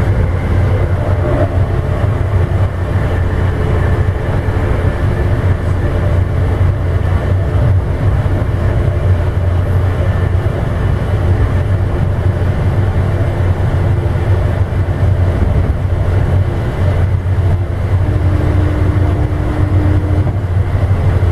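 Amtrak passenger train running, heard from inside the rear car: a steady low rumble of wheels on rail and car body noise. A steady tone comes in about eighteen seconds in and lasts a couple of seconds.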